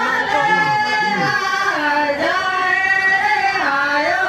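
A group of voices singing a Santali folk song in unison, holding long notes that dip in pitch twice and climb back up.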